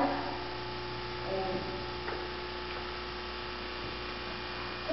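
Steady electrical mains hum, with a faint short sound about a second and a half in and a light click about two seconds in.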